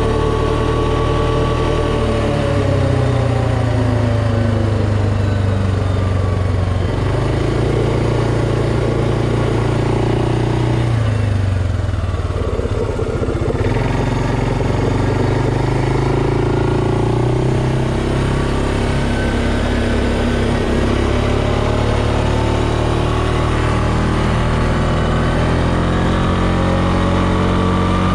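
Suzuki KingQuad 400 ASI ATV's single-cylinder engine running at road speed, its pitch rising and falling a little with the throttle. About halfway through it drops briefly as the quad eases off, then climbs back up as it speeds up again.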